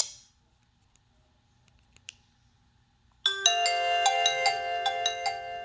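A Nokia 5310 mobile phone playing one of its preloaded ringtones: a bright, chime-like melody of struck notes over held tones, starting about three seconds in after a short silence. The previous tone cuts off right at the start.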